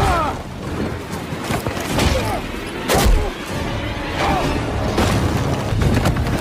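Action-film soundtrack: music under a dense, steady rushing noise, broken by several sudden booms and impacts.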